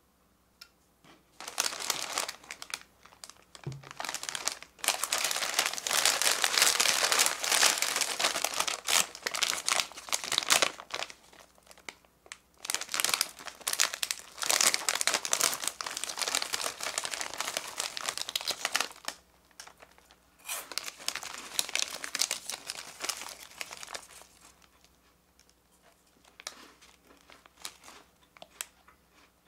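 A small plastic-film Cabbage Taro snack bag being handled and torn open by hand. The crinkling and tearing come in long loud stretches with brief pauses, then fade to a few faint crinkles near the end.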